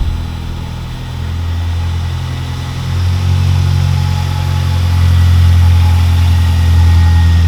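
Honda Jazz engine idling with a steady low hum that grows louder about three seconds in.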